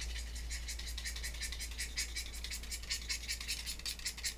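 A pencil being sharpened by hand with a utility knife: a fast, even run of short scraping strokes as the blade shaves the pencil.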